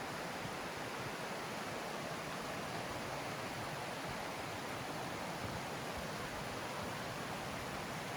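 Steady rushing of a mountain stream, an even wash of water noise without breaks.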